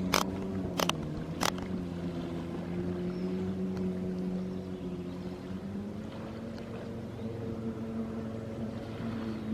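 Jet ski engine running steadily, its pitch sagging slightly after the first second and picking back up later on. A few sharp clicks in the first second and a half.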